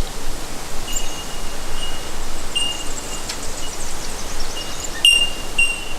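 Small bird calling: a series of thin, steady, high whistled notes, each a fraction of a second long, with faint high twittering between them. A short click comes with the loudest note, about five seconds in.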